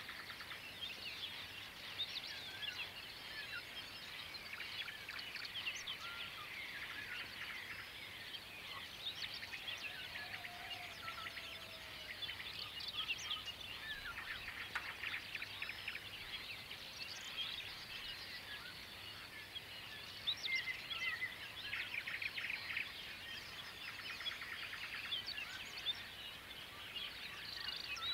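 Dawn chorus: many birds singing at once, a dense run of overlapping high chirps and quick trills with no single voice standing out.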